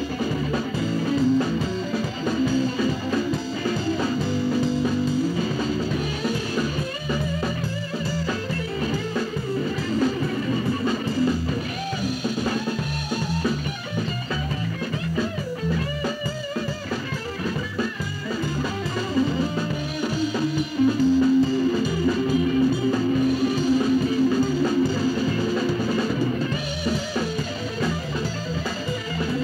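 Instrumental stretch of a gospel song, with guitar and a drum kit keeping a steady beat.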